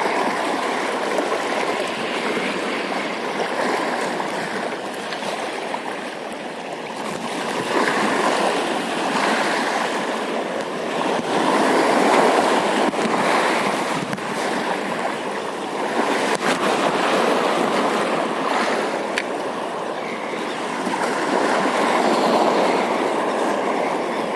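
Steady wash of sea water, swelling and easing every few seconds like waves washing in.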